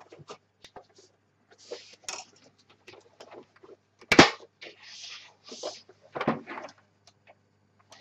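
Handling noise from the plastic case of an Acer 6012 keyboard being moved about on a cutting mat: gloved fingers rubbing and tapping the case, with scattered clicks and rustles and one sharp knock about four seconds in.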